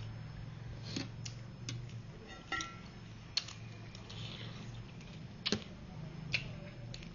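Irregular light clicks and taps, about eight of them, of eating utensils against a noodle-soup bowl, over a steady low hum.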